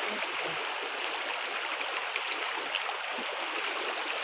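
Fast-flowing river water running over rocks at the bank: a steady hiss of moving water.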